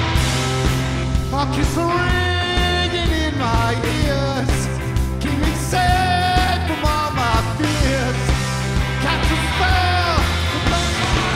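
Live garage rock band playing: a male voice singing over electric guitars and drums.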